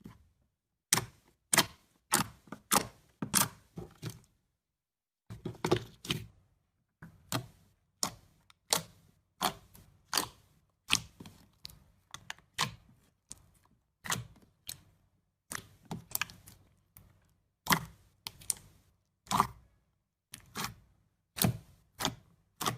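Slime being pressed and poked by hand, giving a run of sharp clicking pops, roughly one every half to three-quarters of a second, with a short pause about five seconds in.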